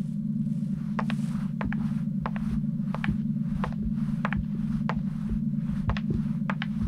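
Steady low hum of the landed flying saucer, with irregular sharp clicks of footsteps on its ramp from about a second in.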